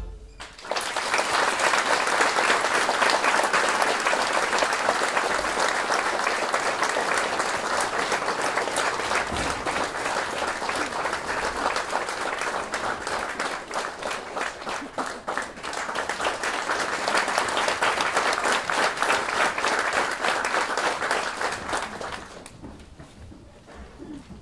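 Concert audience applauding at the end of a piece, starting about a second in and dying away near the end.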